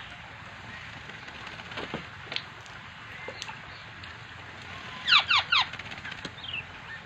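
Black-naped oriole calling: a quick run of three sharp, steeply falling notes about five seconds in, over a steady background hiss with a few faint chirps and clicks.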